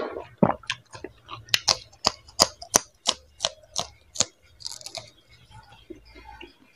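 Close-up crunching and chewing of crisp panipuri (golgappa) shells: a quick run of sharp crunches, about three a second, through the middle, with softer wet chewing clicks around it.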